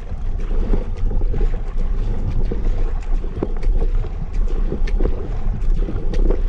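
Kayak paddle strokes splashing and knocking in lake water, many short irregular splashes, over a low rumble of wind buffeting the microphone.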